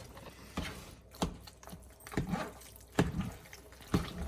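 A spoon stirring thick, gooey mac and cheese in a pot, knocking against the pot about once a second.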